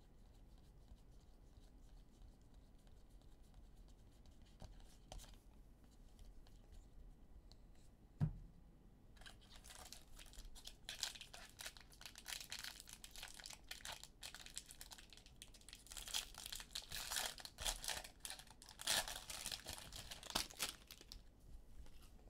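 Trading card pack wrapper being torn open and crinkled by hand: a long run of tearing and crinkling from about nine seconds in, after a quieter start with a single sharp knock.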